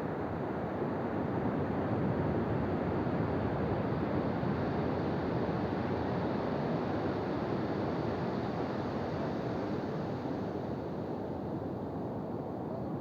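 Ocean surf washing onto a beach in a continuous rush of noise, swelling a little a couple of seconds in and easing slightly near the end.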